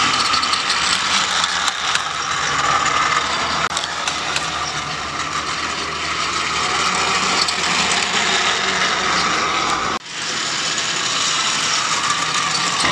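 Battery-powered Trackmaster toy engine refitted with a high-speed motor, running along plastic track: a steady whir and rattle of motor, gears and wheels, dropping out briefly about ten seconds in.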